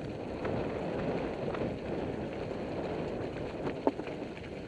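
Mountain bike rolling downhill over loose gravel: a steady crunching of the tyres and rattle of the bike, with a few sharp clicks and one louder knock near the end.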